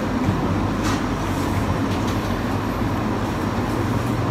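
A steady low mechanical hum, like room machinery, runs under the window. There is one faint light click about a second in.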